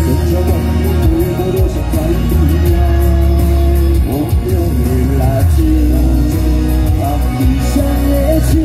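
Live pop song played loud through a stage PA, with heavy sustained bass and a male voice singing held, sliding notes over it.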